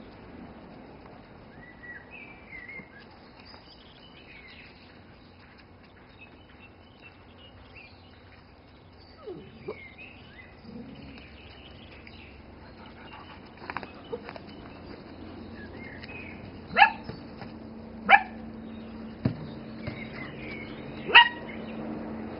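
Dog barking in sharp single barks, three loud ones in the last six seconds, with faint bird chirps in the first half.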